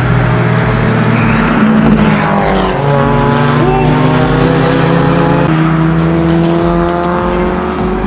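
Subaru Impreza WRX STI's turbocharged flat-four engine running hard at high revs, with tyre squeal as the car slides wide onto the dirt around the middle. The engine note holds steady, then shifts to a different pitch a little after halfway.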